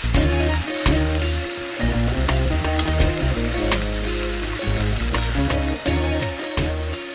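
Pork and vegetables sizzling in a soy-sauce glaze in a frying pan, stirred with a wooden spatula, with a few clicks of the spatula against the pan.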